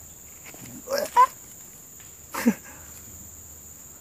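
Three short animal calls, two close together about a second in and a longer one falling in pitch near the middle, over a steady high insect drone.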